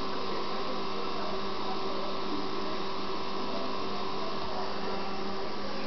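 Vorwerk Folletto vacuum cleaner running steadily: an even motor hum with a few fixed whining tones over a hiss of rushing air.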